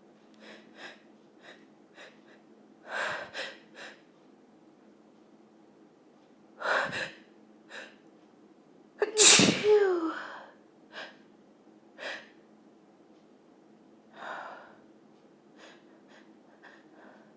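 A woman's loud, voiced sneeze about nine seconds in, after sharp inhaling breaths that build up to it, followed by short sniffs and breaths.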